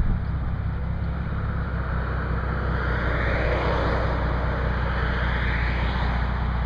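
Jeep Cherokee XJ's engine running with a steady low hum as it rolls up to a stop, while cars pass across in front: their tyre noise swells to a peak about four seconds in and again near the end.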